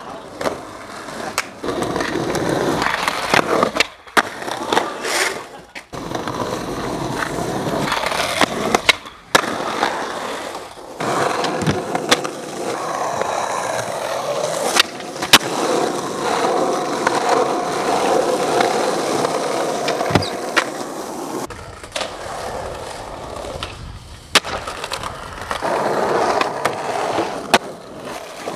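Skateboard wheels rolling over concrete and paving, a steady rough rumble that breaks off and starts again several times. A few sharp snaps of the board popping and landing are heard along the way.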